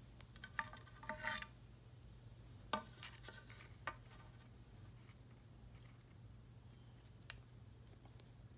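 Steel knife blank set down and shifted on a hardwood board: a few light metallic clinks and taps, some briefly ringing, clustered in the first four seconds, with one more tick near the end. A faint low hum runs underneath.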